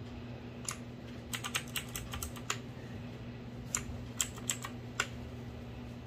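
Keystrokes on a Sunsonny SK-K1 mechanical keyboard with clicky Outemu Blue switches and ABS double-shot keycaps. A single click, then a quick run of about eight, a pause of about a second, then a few scattered clicks near the end.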